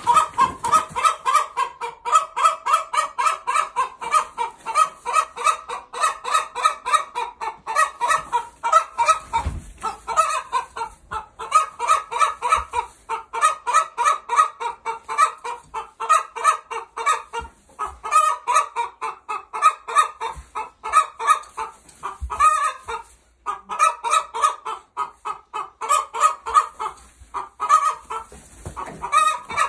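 Chickens clucking rapidly and continuously, about four or five short clucks a second, with only brief pauses.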